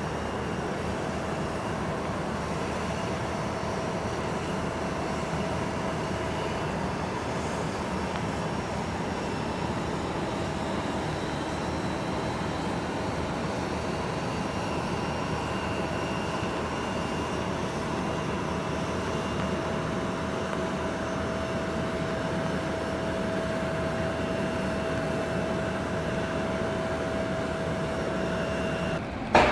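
Steady jet aircraft noise on an airport apron: an even rushing sound with a thin, constant whine over it. A sudden sharp knock comes right at the end.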